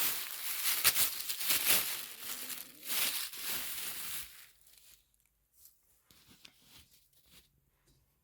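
Fabric being handled, unfolded and shaken, making a loud crinkling rustle for about four seconds, then a few faint rustles.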